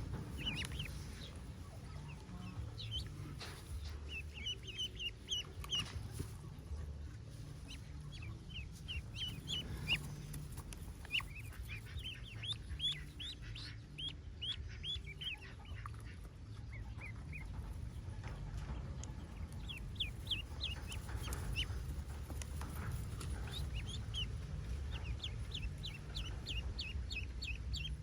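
Newly hatched ducklings peeping, short high peeps in quick runs that come and go, over a steady low rumble.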